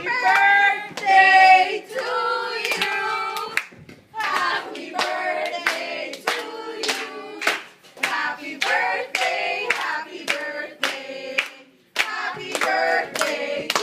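Several voices singing in held, sung phrases, with hands clapping in time along with the song.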